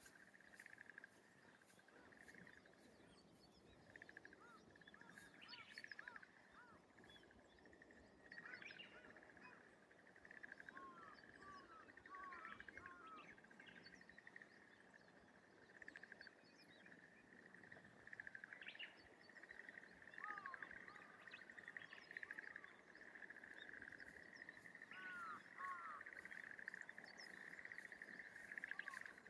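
Faint rice-paddy morning ambience: a steady, rapid rattling trill runs throughout, growing stronger near the end, from a creature that may be a bird or a frog. Short bird chirps come in scattered clusters over it.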